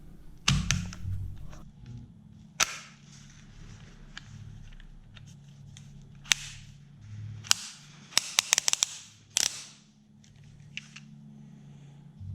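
Sharp plastic-and-metal clicks and snaps from a cordless hammer drill being handled and set up, scattered singly with a quick run of several clicks about eight seconds in.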